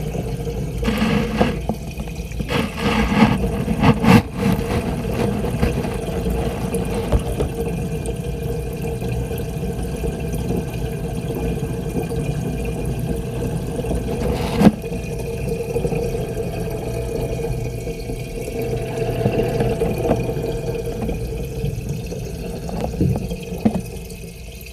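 Steady hum and low rumble of an aquarium filter pump, with water wash, heard muffled by an action camera submerged in the tank. A few knocks in the first seconds and one sharp click about fifteen seconds in.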